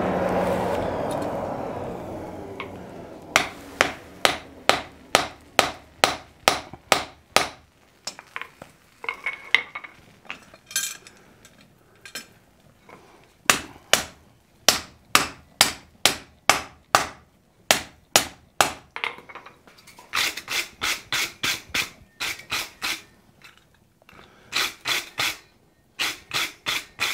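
A blacksmith's hand hammer strikes a wrought iron bar with a tool steel end on a steel anvil at welding heat, forge welding the steel to the iron. A rush of noise fades over the first few seconds. Then come sharp, ringing blows about two a second, followed near the end by faster, lighter runs of blows.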